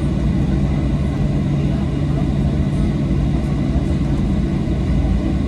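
Boeing 737-800 jet engines (CFM56-7B) running: a steady, loud rumble with faint steady high tones above it.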